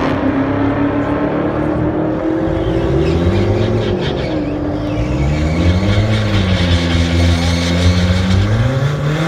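Toyota Tacoma pickup's engine being revved up and down several times while the truck stays in place, its pitch rising and falling with each blip.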